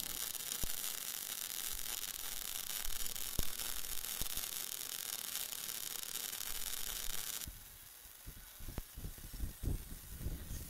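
MIG welding arc from a Fronius power source running 1 mm solid wire on a steel pipe root pass: a steady hissing sizzle with fine crackle. It stops about seven and a half seconds in and gives way to scattered crackling pops.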